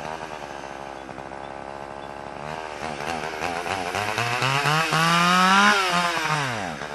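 Two-stroke chainsaw engine running unevenly, its pitch wobbling; it revs up from about two and a half seconds in to a peak near six seconds, then falls away near the end. The owner puts the saw's rough running down to a dirty carburetor.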